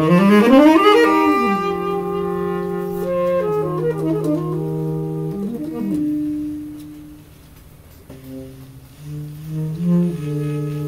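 Three saxophones playing live together, holding long notes in harmony. They come in loudly with a sweeping slide up and back down. The sound thins to a quiet stretch about seven seconds in, then the held chord swells back.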